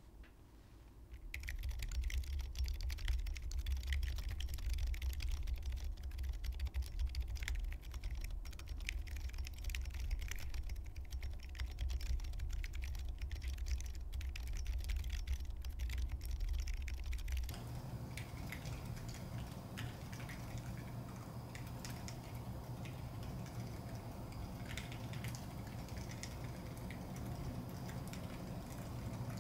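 Typing on a Neo Ergo mechanical keyboard with Durock Silent Shrimp silent linear switches in a gasket-mounted aluminium plate: a steady run of soft keystrokes starting about a second in. About two-thirds through, the keystrokes sound duller over more low hum, picked up by the camera's microphone.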